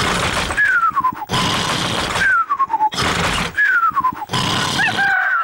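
Cartoon piglet snoring: a rasping snore on each breath in, then a whistle falling in pitch on the breath out, repeating about every second and a half. Near the end a few held musical tones come in.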